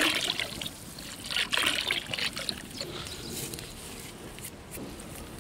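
Cooking oil poured in a thin stream into a large aluminium pot of water with whole spices, then salt poured in: trickling and splashing in uneven bursts, the biggest at the start and about a second and a half in.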